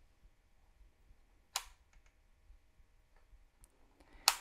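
Two sharp clicks from the Fluke ET88DMM multimeter's rotary selector switch being turned through its detents as the meter is switched off and back on. The second click, near the end, is the louder one, with a few faint ticks between them.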